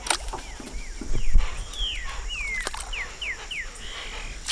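A bird calling in short whistled notes that each fall in pitch, coming faster near the end, and a few knocks. At the very end a released fish splashes water beside the boat.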